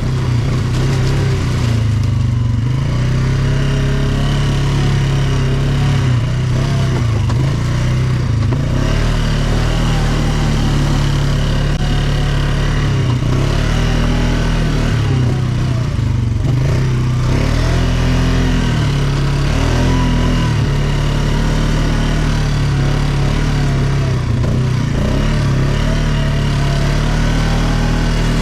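ATV engine running under way, its pitch rising and falling repeatedly as the throttle opens and closes.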